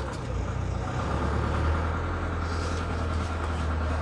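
Ford Transit minibus engine running with a steady low hum, heard from inside the cab as the bus moves off.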